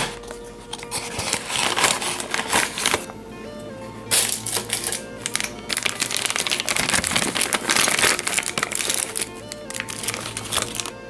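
Clear plastic bag crinkling and a cardboard box being handled as a model airliner is unwrapped, in repeated rustling bursts over background music.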